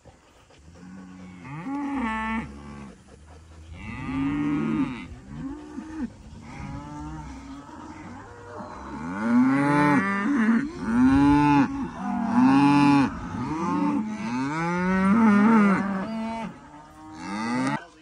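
Several beef cattle mooing, one call after another and often overlapping. The calls grow thicker and louder in the second half.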